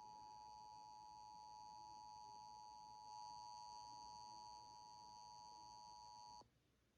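Emergency Alert System attention signal: a steady two-tone alert tone, held without change at a low level, that cuts off suddenly about six and a half seconds in.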